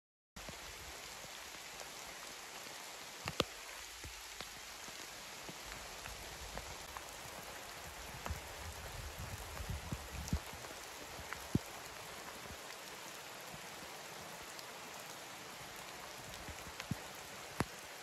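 Steady light rain falling on forest foliage, an even hiss with sharp ticks of single drops hitting leaves now and then. It begins about half a second in.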